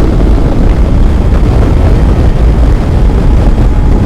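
Wind rushing over the microphone of a moving motorcycle, with the Hero Xpulse 200's single-cylinder engine running underneath at a steady pace.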